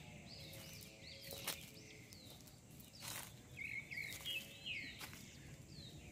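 Birds calling in the forest: a string of short, falling chirps repeated about twice a second, faint, with a few footsteps in leaf litter and undergrowth.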